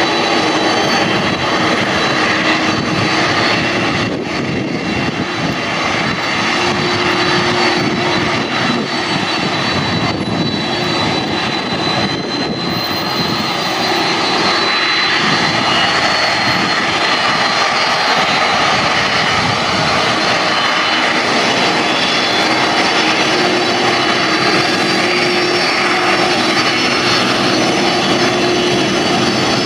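Boeing 747-400's four General Electric CF6 turbofan engines running at low thrust as the jumbo jet taxis and turns on the runway. They make a steady jet whine over a broad engine rumble.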